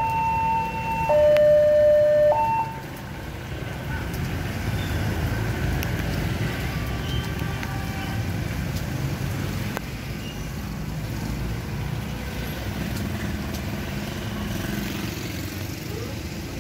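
A railway level crossing's two-tone electronic warning siren alternating high and low, cutting off about two and a half seconds in as the barrier lifts; then a steady low rumble of motorbikes and road traffic crossing the tracks.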